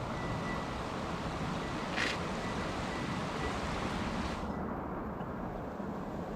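Steady rushing of a mountain stream's flowing water. About four and a half seconds in, the hiss abruptly loses its higher part.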